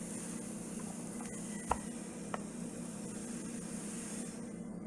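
Steady low hum of room tone, with two light clicks a little over half a second apart near the middle.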